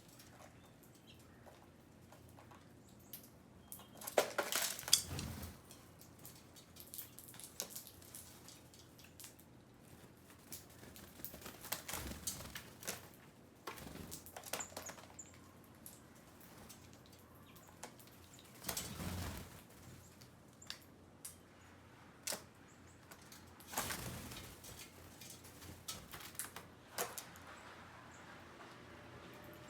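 Small birds' wings fluttering in three short bursts, among scattered faint clicks and taps.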